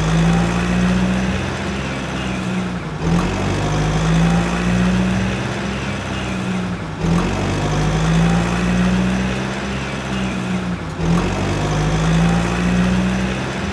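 Truck engine running at idle with a steady low hum; the same stretch of sound repeats about every four seconds, like a looped engine sound effect.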